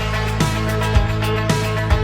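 Background music with a steady beat: a low drum thump about twice a second under sustained instrumental tones.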